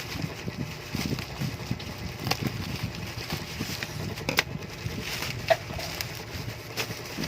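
Handling noise: scattered light clicks and taps over a low rumble, like packaging being handled during an unboxing, with one sharper click about four seconds in.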